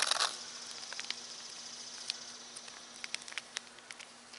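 A short burst of crinkling as the foil wrapper of a vacuum-packed coffee brick is torn open by hand, then scattered light ticks and rustles as the package is worked apart. A steady insect buzz runs underneath.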